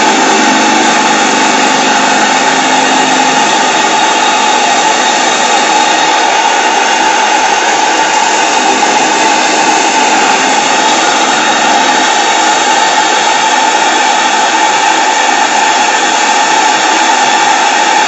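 Model PMR V-twin double-acting oscillating steam engine running fast on steam from a Saito BT1L boiler, giving a loud, steady hiss without a break.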